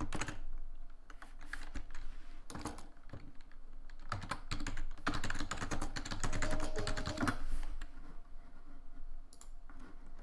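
Typing on a computer keyboard: quick runs of key clicks in bursts, densest through the middle and thinning out to a few stray keystrokes near the end.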